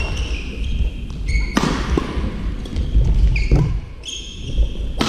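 Badminton doubles rally: three sharp racket strikes on the shuttlecock, about two seconds apart, with shoe squeaks on the court floor in between, over the steady low rumble of the sports hall.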